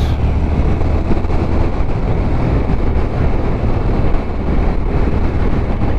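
Motorcycle riding at steady speed: a constant low engine drone under heavy wind noise buffeting the microphone.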